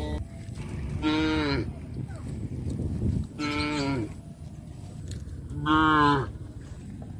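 Cattle mooing: three short calls about two and a half seconds apart, each dropping in pitch at the end.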